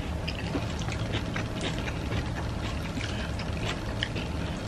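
Quiet hand-eating sounds: fingers picking at fried fish and fried eggplant, with scattered faint clicks and small wet sounds, over a steady low hum.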